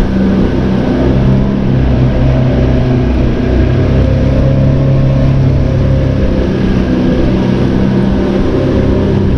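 A small open tour boat's engine running steadily, heard from on board: a loud, even low drone.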